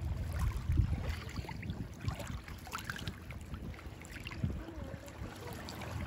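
Shallow seawater lapping and washing over a bar of broken shells and gravel close to the microphone, with small splashes and a steady low rumble.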